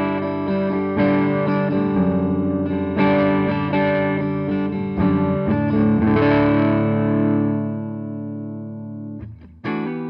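Electric guitar played through a Laney Cub EL84 tube head on its clean channel, volume and gain at 4: strummed chords ringing into each other, one chord left to ring and fade from about six seconds in, cut off sharply a second before the end, then short choppy chords.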